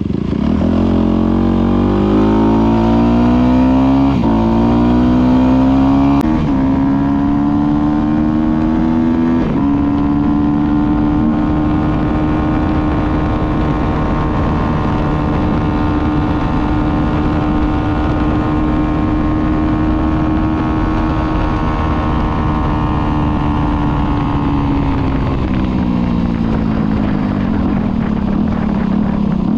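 Motorcycle engine accelerating up through the gears: the pitch climbs and steps back at each of about three shifts. It then holds a steady pitch at cruising speed and falls away near the end as the bike slows.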